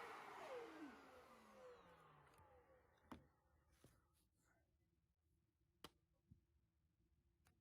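Dyson Ball Multi Floor 2 upright vacuum's motor spinning down after being switched off: its airflow hiss fades over about two seconds with a falling whine. A few faint clicks follow.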